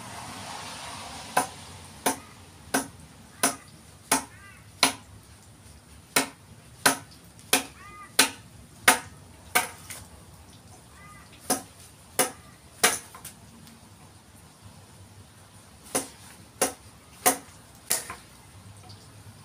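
Sharp blows of a hand tool striking a eucalyptus forest red gum log being shaped into a didgeridoo. The blows come evenly, about three every two seconds, in runs of three to six with short pauses between, some with a brief ring.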